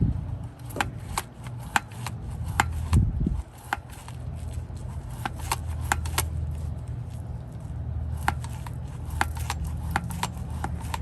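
Grease gun being pumped to fill the steering-brace bearing assembly through its Zerk fitting: a string of sharp, irregular clicks, with a heavier thump about three seconds in, over a steady low hum.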